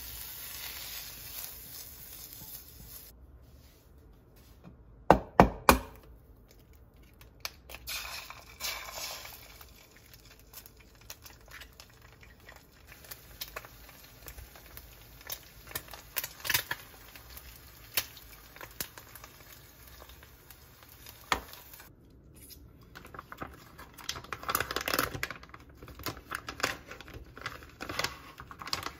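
Kitchen cooking sounds: a spatula scraping and tapping against a pan and bowl, with a few sharp knocks about five seconds in. Near the end, a plastic packet crinkles and tears.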